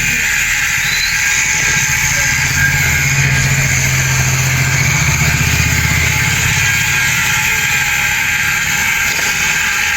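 Motorcycle engine running, its low note swelling for a few seconds in the middle, over a steady hiss.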